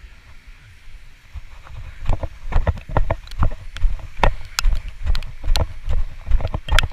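Quick footsteps on wet stone paving with the handheld camera knocking at each stride, about two to three a second, starting about two seconds in; a low wind rumble before them.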